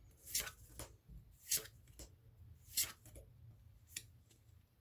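Pokémon trading cards slid one past another while a booster pack is looked through: about five short, irregularly spaced swishes of card against card.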